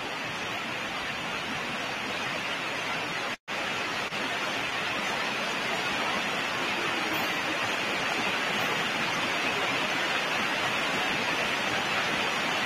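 Steady hiss of noise, cut by a brief dropout to silence about three and a half seconds in.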